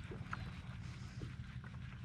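Wind rumbling on the microphone out on the water, with a few faint clicks over it.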